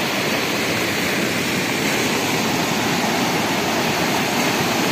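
Small river in spate, swollen by heavy rain: muddy floodwater rushing and churning through a concrete-walled channel with a steady rush.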